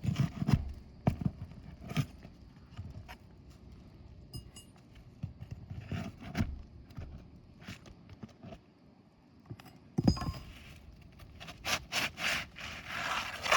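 Irregular scraping, rustling and sharp knocks of an asphalt roof shingle being worked loose and pulled out, with a longer stretch of scraping near the end.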